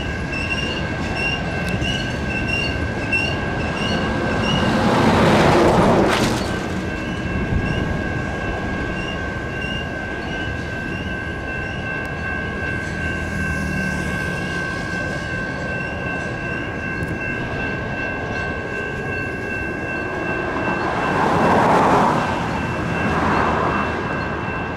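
Railroad crossing signal bells ring steadily at about two strikes a second throughout. A freight train of covered hopper cars rolls past over the first several seconds, its rumble swelling to a peak about five to six seconds in and then fading as the last cars clear. Another swell of passing noise comes near the end.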